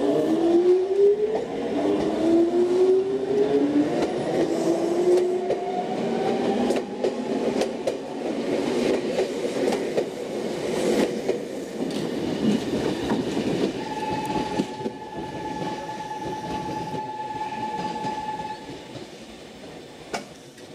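Nankai 2000 series electric train pulling out, its traction motors whining in several rising tones as it accelerates, then its wheels clattering over the rail joints as the cars pass. A steady high tone sounds for about four seconds in the second half.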